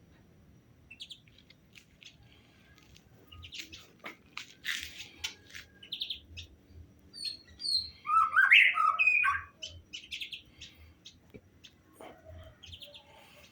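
Birds chirping and calling in scattered short notes, with a louder jumbled burst of calls a little past the middle.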